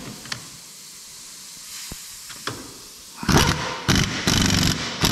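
Pneumatic impact wrench hammering in four short bursts near the end, tightening the top-mount nut on a car's front strut with a red coil spring, after a few light clicks as the socket is fitted on.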